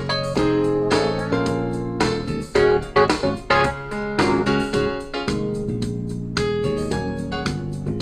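Instrumental music played on a keyboard, with notes and chords changing every fraction of a second.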